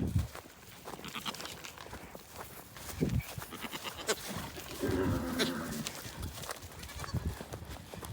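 A farm animal bleats once, a call about a second long around five seconds in, among scattered short knocks and shuffles of movement.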